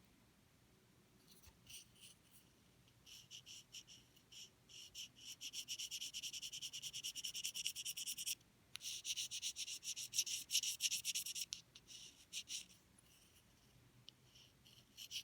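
A reed knife scraping the cane of an English horn reed blank in quick, short, rhythmic strokes, several a second. The strokes come in runs, with a brief pause a little past the middle and sparser strokes near the end.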